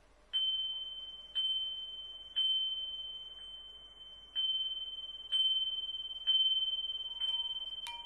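A small hanging cast-metal bell struck with a mallet about once a second, seven times, each strike ringing one high clear tone that fades before the next. Near the end a couple of sharp clicks and a lower ringing tone come in.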